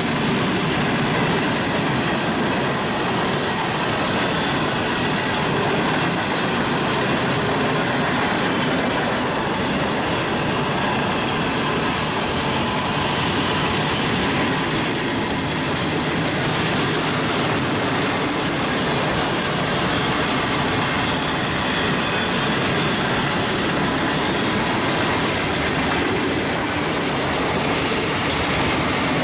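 Mixed freight train's cars rolling past at steady speed: a continuous rumble and rattle of steel wheels on the rails that holds level throughout.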